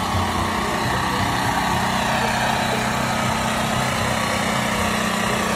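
Semi truck's diesel engine running steadily, a constant low hum under an even wash of noise.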